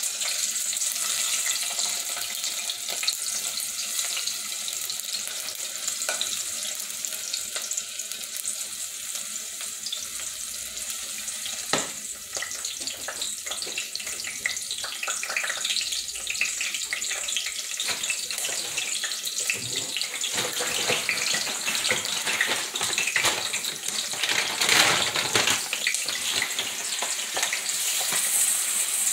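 Onion and sweet pepper frying in oil in a stainless saucepan: a steady, high hissing sizzle. Near the end, dry rice is poured into the hot pan.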